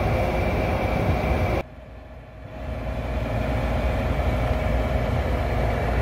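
Gas furnace running with its burners lit: a steady mechanical hum and rush with a few fixed tones, as the unit relights after its plugged condensate trap was cleared. The sound breaks off abruptly about a second and a half in, and a similar steady hum builds back over the following second.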